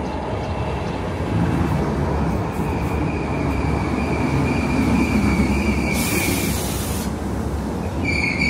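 DART electric multiple unit pulling into the platform and slowing to a stop: a steady rumble of wheels on rail with a thin high squeal. A loud high-pitched tone starts near the end, the door-release signal.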